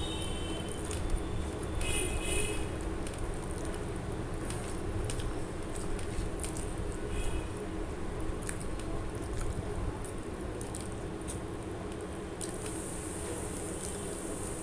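Fingers mixing and squeezing pea pulao rice on a steel plate: soft squishing with scattered sharp clicks of fingers and rice against the metal, over a steady low rumble.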